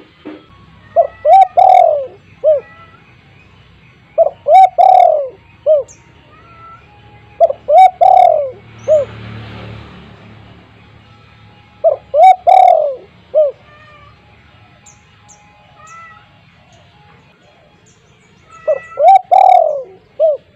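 Spotted dove cooing: five phrases of a few short, low, rounded coos each, repeated every few seconds, with faint high chirps of small birds in between.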